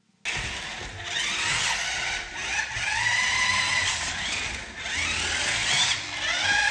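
A toy remote control car's small electric motor whining, its pitch rising and falling as it speeds up and slows down. It starts suddenly just after the beginning and cuts off sharply at the end.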